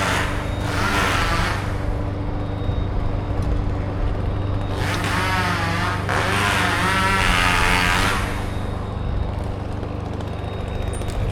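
An engine running steadily under two louder bursts of a chainsaw revving and cutting, its pitch wavering. The first burst fades out about a second and a half in; the second starts about five seconds in and lasts around three seconds.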